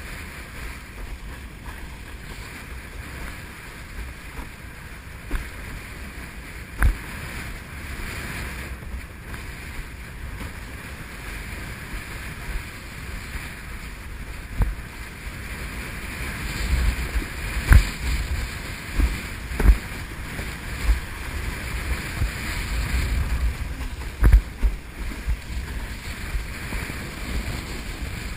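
Wind rushing over the microphone and water hissing past an Exocet Xwave windsurf board planing through chop, with several sharp thumps as the board slaps over waves, more of them in the second half and the loudest about 18 seconds in.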